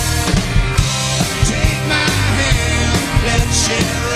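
Live rock band playing a song, with a drum kit keeping a steady beat under electric guitar.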